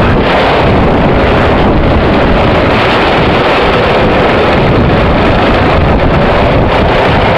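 Onboard sound of a go-kart at racing speed: loud, steady wind buffeting on the microphone over the kart's running motor.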